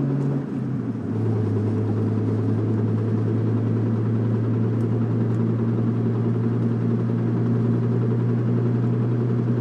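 1997 Nissan Maxima's 3.0 L V6 heard from inside the cabin while driving, a steady drone that drops in pitch about a second in and then holds. Under it the faint knocking from the engine bay that the car is being driven to show, a noise that gets faster with road speed and goes away with the clutch pedal in.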